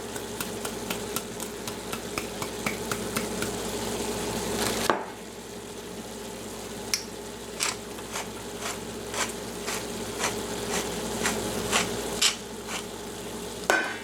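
Frozen pasta, chicken and vegetable dinner sizzling in a skillet, with repeated light clicks of a utensil or seasoning against the pan. The sizzle drops suddenly about five seconds in and goes on quieter with scattered clicks.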